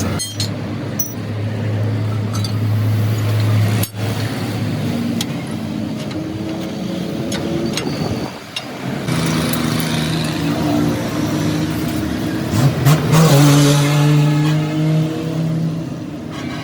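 Motor vehicle engines running in road traffic, their steady hum changing pitch a few times; an engine revs up and grows louder near the end.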